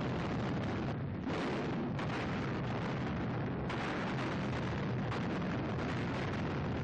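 Continuous rumble of bomb explosions and anti-aircraft fire, dense and unbroken, with fresh blasts about a second in and again near four seconds.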